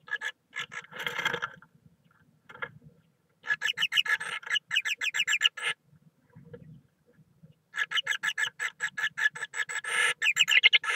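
Great tit giving rapid chattering calls close to the microphone inside the nest box: two long runs of about ten notes a second, after a brief rustle of nest material near the start.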